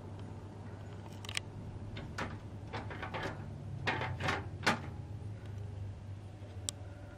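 Plastic gravity shutter louvers of a Panasonic FV-40AFU 16-inch exhaust fan clacking as they swing open and drop shut, a run of light clacks with a last one near the end. A steady low electric hum from the fan's motor runs underneath.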